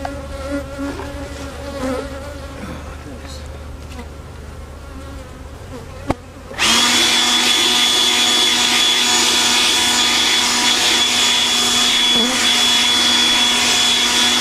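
Honeybees buzzing around an opened hive. About six seconds in there is a click, and a blower switches on and runs steadily and loudly with a high whine, used to blow the remaining bees out of a honey super before harvest.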